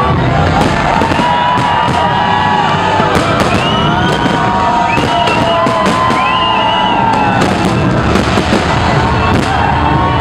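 A fireworks display: a steady run of sharp bangs and crackles, over many overlapping whistling tones that rise and fall in pitch.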